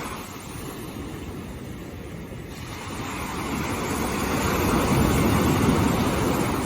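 Ocean surf breaking on a beach: a steady wash of water noise that swells from about halfway through to its loudest near the end as a wave comes in.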